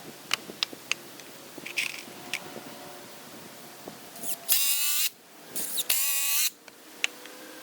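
Cordless drill/driver driving deck screws into 2x4 lumber, in two short bursts of about half a second each with the motor pitch sagging under load, after a few light clicks of the wood being handled.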